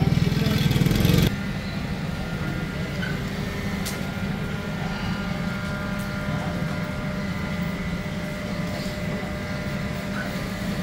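A motorcycle engine running for about the first second, then a sudden drop to a steady mechanical hum carrying several steady tones.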